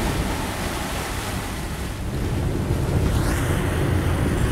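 Wind buffeting the microphone over water rushing along the hull of a sportfishing boat under way, a steady rush of noise with a heavy low rumble.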